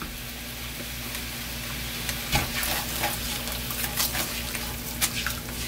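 Sweet-spicy chicken sauce bubbling and sizzling steadily in a nonstick wok as a spatula stirs it, with a few light scrapes and taps against the pan. The sauce is reducing and thickening.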